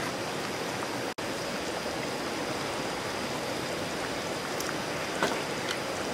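Pork miso soup (tonjiru), thick as a stew, simmering in a Nambu cast-iron pot over a charcoal fire: a steady bubbling, with a brief dropout about a second in.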